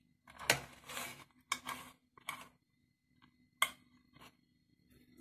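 Metal knife scraping against a stainless-steel idli plate in several short strokes, loosening steamed rava idlis from the moulds, then a single sharp metal clink about three and a half seconds in.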